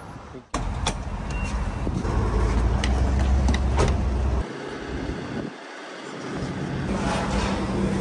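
Gas-station forecourt noise: a low rumble of vehicles, with a few sharp clicks as the fuel pump's buttons and the nozzle are handled during refuelling.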